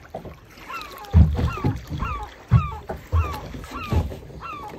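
Waves slapping against the hull of a small boat in a series of heavy low thumps, with a run of short, falling yelp-like calls repeating about twice a second.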